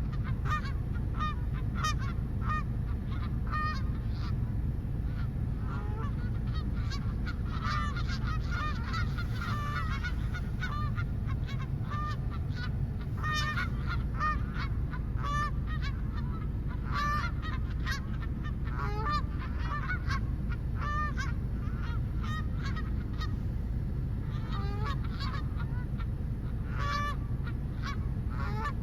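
A flock of geese honking, many short calls in quick irregular succession, sometimes overlapping, over a steady low background rumble.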